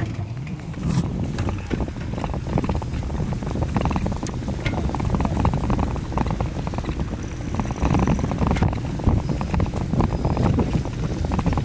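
Wind buffeting the microphone of a camera on a moving bicycle, with the rattle and bumps of the bike rolling over the road, all sped up to double speed.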